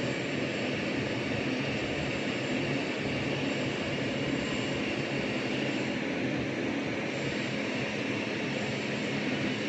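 MIG welding machine switched on and idling, its cooling fan running with a steady whir and a low hum.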